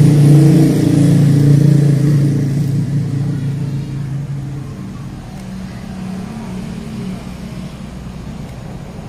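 A motor vehicle's engine running close by, loud at first and fading away over about five seconds, leaving a faint engine hum.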